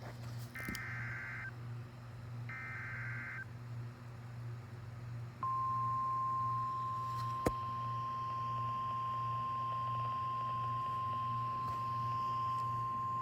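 NOAA Weather Radio emergency alert: the last two of three roughly one-second bursts of the SAME digital header, then about two seconds later the steady single 1050 Hz warning alarm tone starts and holds, over a low receiver hum. The header and the tone signal the start of a weather warning broadcast.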